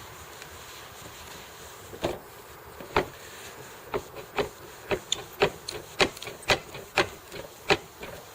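A series of sharp knocks, about a dozen at roughly two a second, starting about two seconds in, over a steady background hiss.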